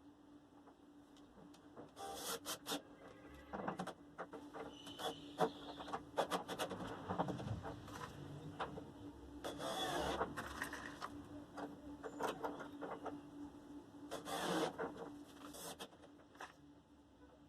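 Wood being handled: short scraping and rubbing bursts with sharp clicks and knocks at irregular intervals, over a faint steady hum.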